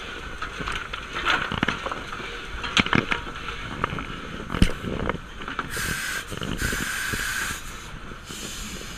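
Narrow-gauge steam locomotive running, heard from its cab: irregular clanks and knocks from the footplate and running gear, with bursts of steam hiss about six seconds and seven seconds in, and again near the end.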